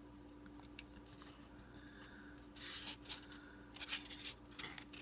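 Paper-faced foam board being handled and flexed at its hinge: several short scraping, rustling rubs about two and a half seconds in and again near the end, over a faint steady hum.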